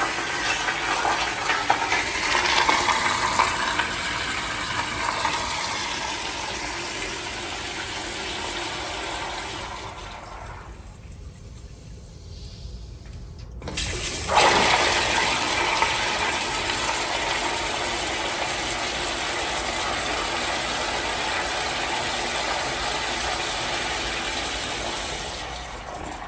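Public-restroom flush fixtures flushing twice. A loud rush of water fades out over the first ten seconds or so. A second flush starts suddenly a little past halfway and runs steadily before easing off near the end.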